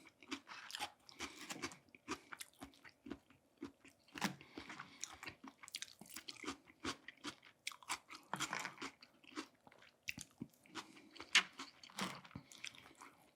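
Close-miked chewing of food, with irregular crunches and wet mouth clicks.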